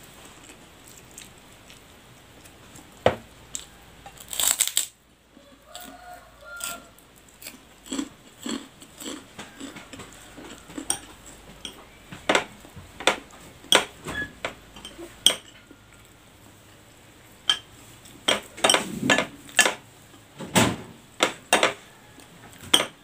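A metal spoon clinking and scraping against a ceramic plate during a meal of fried noodles, in scattered sharp clinks that come thicker in the second half, with a louder clattering burst about four and a half seconds in.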